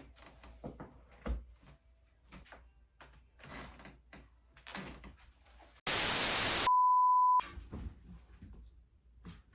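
Soft knocks and rustles of things being handled, then about six seconds in a loud burst of static hiss, followed at once by a steady high electronic beep that cuts off abruptly after under a second.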